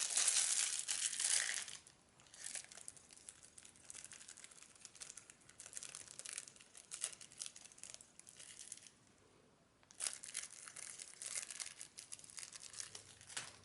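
A small brush scrubbing over parts of an iPhone X in rapid scratchy strokes, hardest in the first two seconds, then lighter, pausing briefly about nine seconds in before a further run of strokes.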